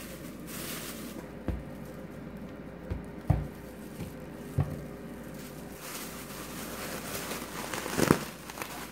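Clear plastic bag crinkling and rustling as it is handled with bread cubes inside, with a few soft thumps in the first half. From about six seconds in, the bag of bread cubes and olive oil is shaken, the rustling growing denser and louder, loudest near the end.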